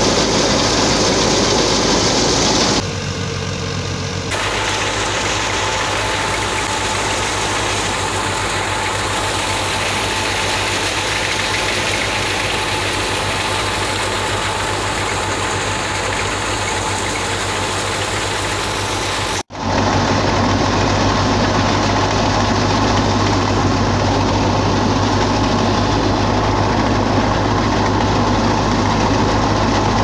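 Tractor-driven Jamil wheat thresher running steadily at work: the tractor engine and threshing machinery make a loud, even drone with a low hum. The tone changes abruptly about three seconds in, again about a second later, and again near the middle, with a brief dropout.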